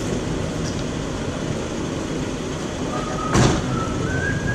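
Steady low rumbling background noise, with a single sharp thump about three and a half seconds in.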